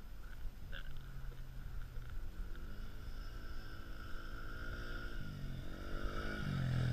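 Engine of a 2012 Polaris Outlaw 90 youth quad running over a low rumble. It comes in about a second in, holds a steady note, then rises and falls in pitch with the throttle and grows louder near the end.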